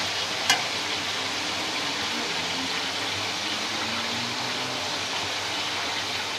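Chicken pieces frying in hot oil in a karahi, a steady sizzling hiss. A single sharp click sounds about half a second in.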